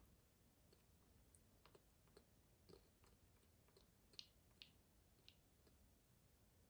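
Faint, irregular small clicks of a white cockatoo chewing food in its beak, about a dozen over the span, the two loudest close together a little past the middle, over near silence.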